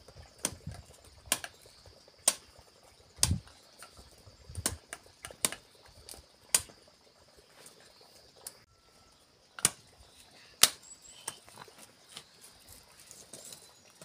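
Machete chopping cassava stems into short planting cuttings: sharp single chops at irregular intervals, about a dozen in all. A faint steady high-pitched hum runs underneath.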